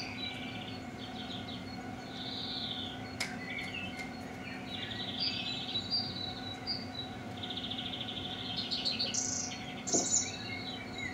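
Songbirds chirping and trilling, several songs overlapping, over a steady low hum. Two sharp clicks stand out, about three seconds in and near the end.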